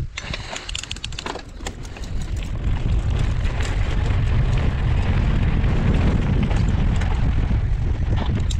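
Wind buffeting the microphone and the knobby tyres of a Giant mountain bike rolling fast over a loose dirt road, with scattered rattles and clicks from the bike. The noise builds over the first few seconds as the bike gathers speed, then holds steady.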